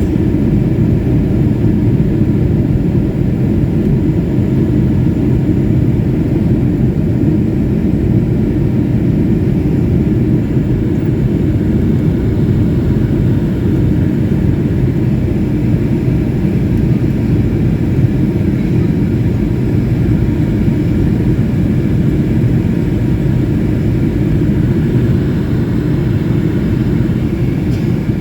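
Steady low rumble of a jet airliner's engines and airflow heard inside the passenger cabin during takeoff, unchanging in level throughout.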